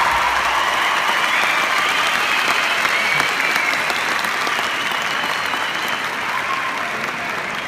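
Large audience in a hall applauding steadily. The applause slowly dies down toward the end.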